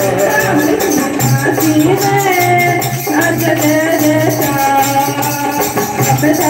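Live Hindi devotional song to the Mother Goddess: a voice singing a melody over a barrel drum and rhythmic jingling hand percussion.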